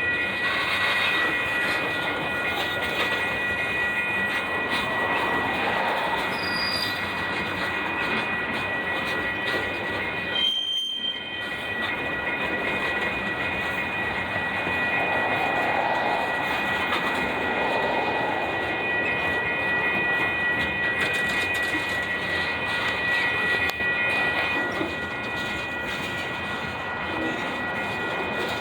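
Freight cars of a very long, heavy train rolling past: a steady rumble of steel wheels on rail with a continuous high-pitched wheel squeal held over it.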